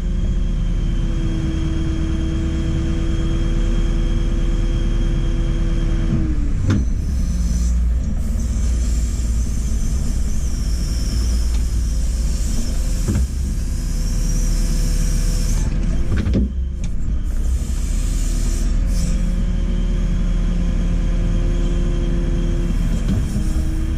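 JCB 4CX backhoe loader's diesel engine running steadily under load, with a whine from its hydraulics that changes as the backhoe is worked. There are several knocks, about three, spread through it.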